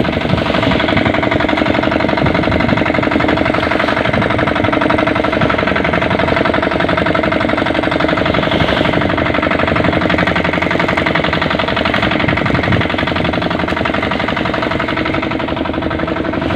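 Fishing boat's engine running steadily while the boat is under way, an even, rapid firing rhythm at a constant pitch.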